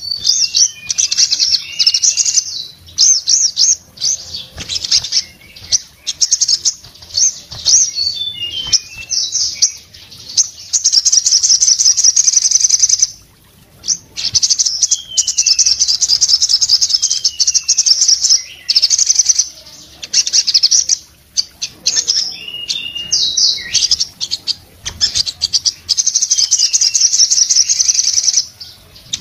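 Male sogon sunbird in full song: a rapid, high-pitched twittering song of long fast trills with short downward-sliding notes mixed in, almost unbroken apart from two brief pauses.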